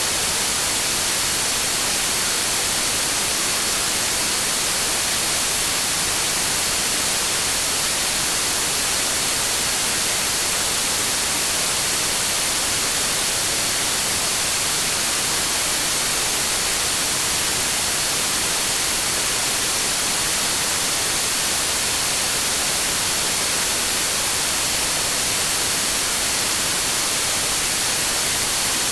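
Continuous generated noise for sleep and tinnitus masking: an even, unchanging hiss, brightest in the treble, with a faint steady high tone running through it.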